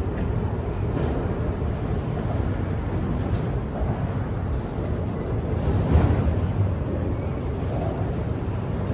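Freight train of autorack cars rolling past, a steady rumble and clatter of steel wheels on the rails, with a louder knock about six seconds in.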